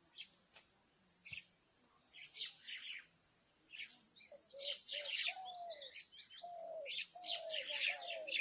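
Sparrows chirping in short bursts, sparse at first and crowding together in the second half, while from about halfway through a ghughuti dove gives a run of low, falling coo notes underneath.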